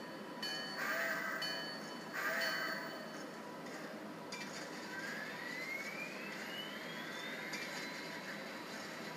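Digital sound decoder in an HO-scale model steam locomotive, standing still and playing steam sounds through its small speaker: two short hisses in the first few seconds, then a steady hiss with a thin tone that rises in pitch around the middle.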